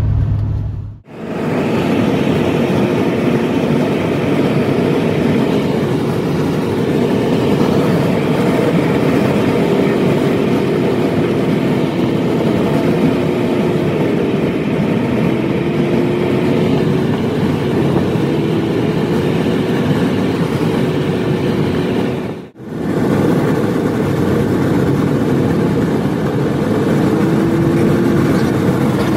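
Steady engine, tyre and wind noise inside the cab of a square-body pickup truck driving at highway speed, with a faint wavering hum running through it. The sound drops out briefly twice, about a second in and about two-thirds of the way through.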